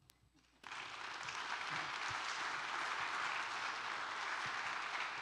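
Congregation applauding, starting suddenly about half a second in after a brief hush, as a dense, even clapping.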